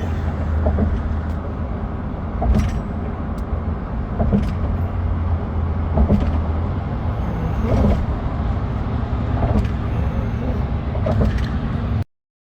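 Steady low rumble of a motor vehicle, with scattered light clicks and knocks, cutting off abruptly near the end.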